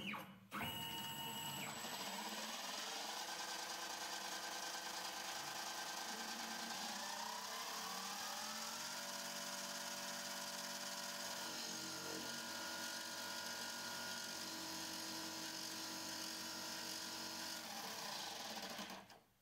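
CNC-converted mini lathe running a turning pass: a steady motor whine made of several tones, which shift upward in pitch twice. The spindle is turning the wrong way and too fast, which the owner blames for breaking off another corner of the insert.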